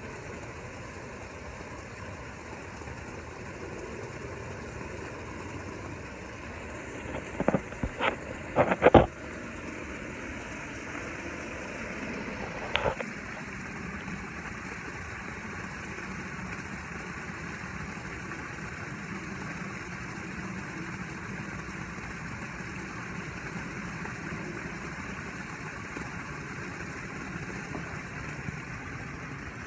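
Steady hum of a pool filter pump running. A few sharp knocks come about a third of the way in, with one more soon after, from the phone being handled.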